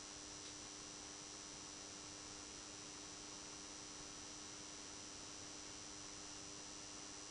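Faint steady electrical hum with hiss from a burning Tesla SHC 400 W high-pressure sodium lamp running on its ballast, with a thin steady high whine above it.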